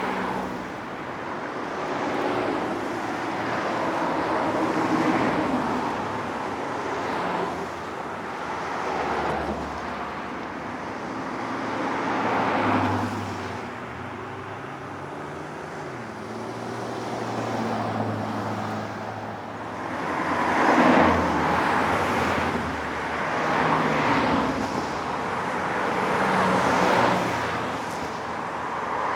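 Highway traffic: a continuous wash of tyre and engine noise that swells and fades as individual vehicles pass, with the loudest passes about two-thirds of the way through.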